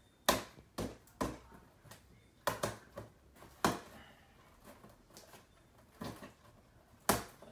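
A pen tip jabbing and scraping at the packing tape on top of a cardboard box to cut it open: irregular short, sharp scratches and taps, about eight in all.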